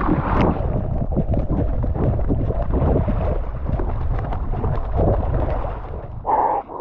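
Shallow seawater splashing and sloshing as a shark is chased on foot across the flats, with wind buffeting the action camera's microphone.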